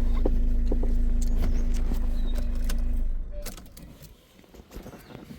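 Car engine running steadily, then switched off about three seconds in, followed by a few light clicks and knocks.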